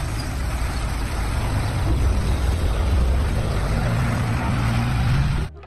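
A city bus driving by: a steady low engine rumble with road noise, rising a little towards the end before cutting off suddenly.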